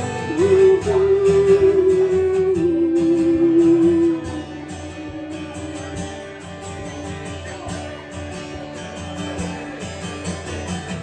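A live song's ending, over strummed guitar: a long held note stepping down in pitch over the first four seconds, then the guitar strumming on alone, quieter.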